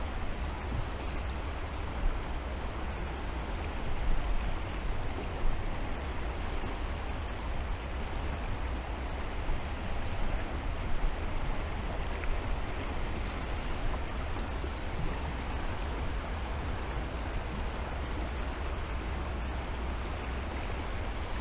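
Rushing water of a river rapid, a steady hiss, with low wind rumble on the microphone.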